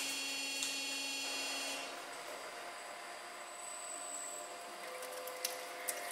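Glass VSMF shredding machine running: a hiss that fades away over the first two seconds, then a steady hum with a few light clicks near the end.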